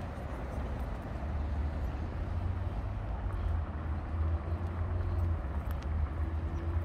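Outdoor city street noise: a steady low rumble of road traffic, with a faint held engine tone passing twice.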